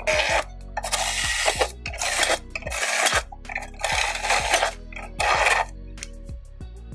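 Cordless drill boring through a steel strap into a plastic drum in about six short bursts, over steady background music.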